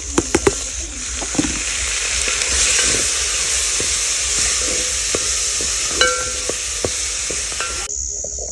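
Chopped tomatoes tipped into a hot metal saucepan of goat meat and onions frying in oil, with three sharp knocks against the pot as they go in. A steady sizzle then swells as a wooden spoon stirs them through, and it stops suddenly near the end.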